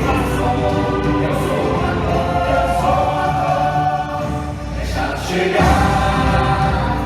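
Music with choral singing: a choir holding long sustained notes, swelling a little past halfway.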